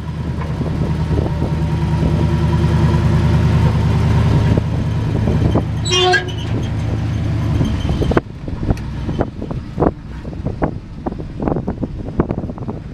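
The 1967 Chevrolet C50 grain truck's gasoline engine idling steadily, with a short toot about six seconds in. The engine shuts off abruptly about eight seconds in, leaving wind gusting on the microphone.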